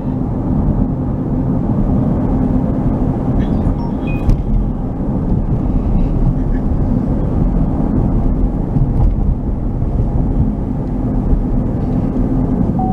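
Car travelling on the road, heard from inside the cabin: a steady low drone of road and engine noise.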